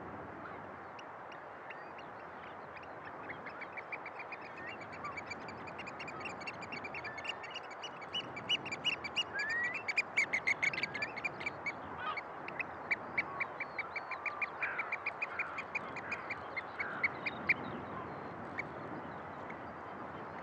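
Oystercatcher giving a long, rapid series of high piping calls. It starts a few seconds in, is loudest around the middle and stops a few seconds before the end, over a steady rushing background noise.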